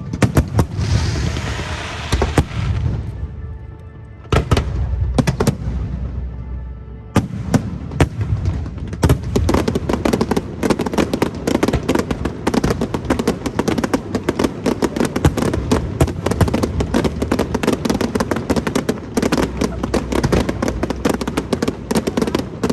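Fireworks display: sharp shell bursts with a hissing crackle near the start, thickening about nine seconds in into a dense, rapid barrage of bangs and cracks.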